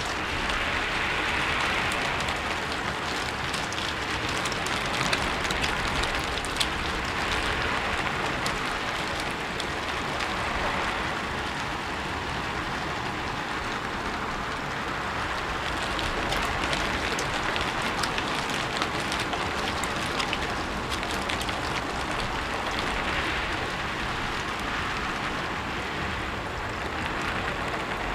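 Steady rain falling on a rooftop, an even hiss with scattered sharper drop ticks, swelling and easing gently.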